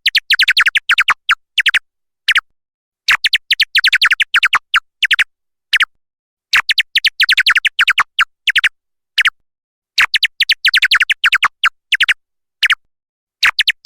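Bat calls: rapid clusters of short, high chirps, about every three and a half seconds, with single chirps in the gaps between.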